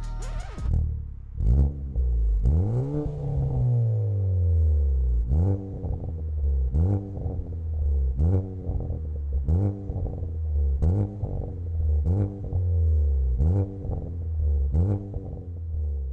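Second-generation Chevrolet Cruze with an aftermarket cat-back exhaust, revved in short throttle blips about every second and a half. Each blip is a quick rising note that falls back to a steady low drone.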